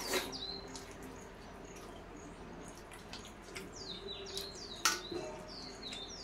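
Short, quickly falling chirps of a small bird, several in a row near the start and again from about four seconds in. Two sharp clinks of steel plates, the louder just before five seconds in, and a steady low hum lie underneath.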